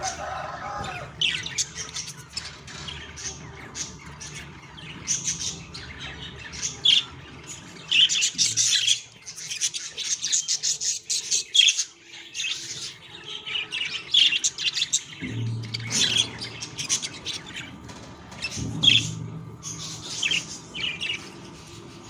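Budgies chirping and squawking in rapid, short, high calls, busiest from about eight to twelve seconds in. A low hum swells twice in the last third.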